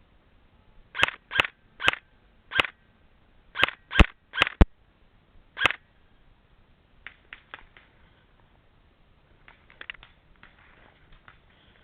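Airsoft gun firing about nine single shots over some five seconds, sharp snapping cracks at uneven spacing, followed by a few fainter snaps.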